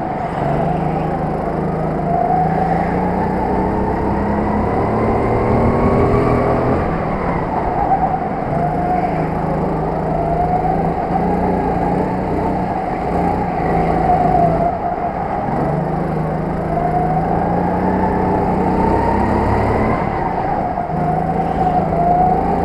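Go-kart engine heard from on board, revving up through the straights and dropping back for the corners, its pitch rising and falling several times.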